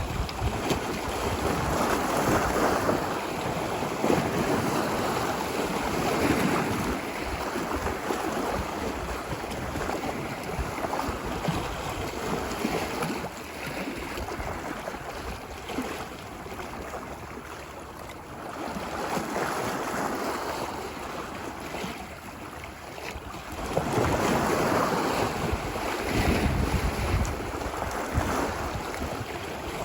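Ocean waves washing onto a beach, the surf swelling and falling back every few seconds, with wind rumbling on the microphone.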